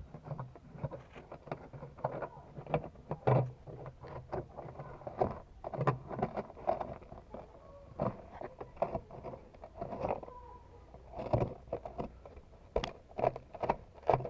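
ZAZ Tavria with irregular knocks and creaks over a steady low engine hum, the sign of a suspension beam that has torn loose.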